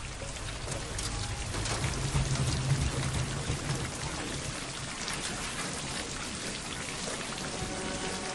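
Steady rain pattering on and around a wrecked, overturned car, with many fine ticks of falling glass and debris, under a low drone of film score that swells in the first half.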